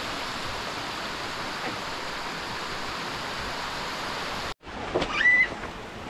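A steady, even hiss of water. It cuts off abruptly about four and a half seconds in, and a high voice calls out near the end.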